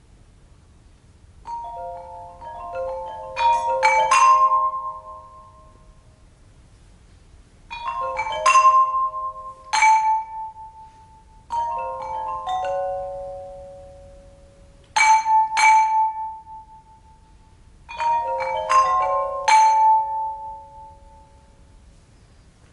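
Tuned pipes struck with mallets: five short flurries of quick, ringing pitched notes in stepped runs, separated by pauses of a second or two.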